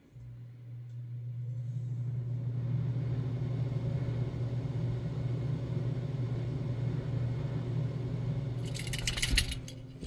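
A vehicle engine running with a steady low hum. Near the end there is about a second of jangling keys, and then the hum stops.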